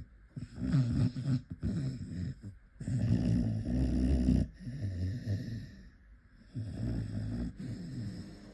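A Staffordshire bull terrier snoring in its sleep: several snoring breaths, the longest and loudest about three seconds in.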